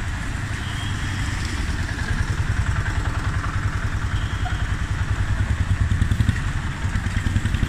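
Low, uneven rumble of vehicle engines running close by, over a steady hiss.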